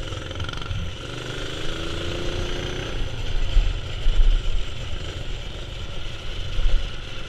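Predator 212 single-cylinder four-stroke engine of a mini-bike running under way, rising in pitch about a second in as the throttle opens. A heavy, uneven low rumble comes in during the second half.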